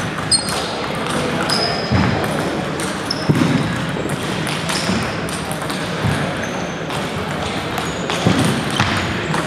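Table tennis balls clicking off paddles and tables in rallies, with short squeaks of sneakers on a gym floor, over the steady chatter of a busy hall.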